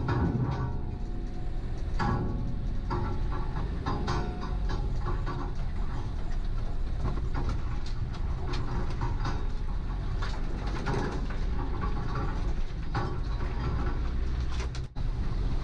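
Land Rover Defender's engine running steadily as it crawls forward, with repeated crackles and scrapes of branches and twigs brushing against the vehicle.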